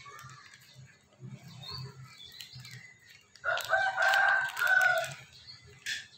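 A rooster crows once, about three and a half seconds in, a loud call lasting about a second and a half. Around it, faint rustling and snipping of a plastic wrapper being cut with scissors.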